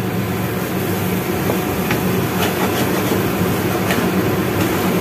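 Wooden spatula stirring and scraping tiwul (cassava rice) as it fries in a nonstick frying pan, with short scrapes every second or so over a steady low hum and frying noise.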